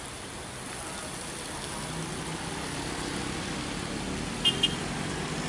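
Engines of vehicles on a wet road, a hum that grows steadily louder as they come closer, under a steady hiss. About four and a half seconds in, a horn gives two short, high beeps.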